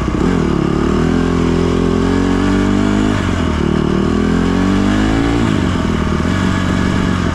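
Dirt bike engine running under way, its revs climbing soon after the start, dropping back about three seconds in, climbing again and falling away at about five and a half seconds, then running steadily.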